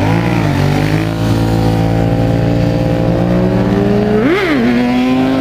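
Honda RC51's 1000 cc V-twin engine accelerating hard through a wheelie: the pitch dips and climbs just at the start, rises slowly for a few seconds, then shoots up and drops back quickly about four and a half seconds in before holding steady.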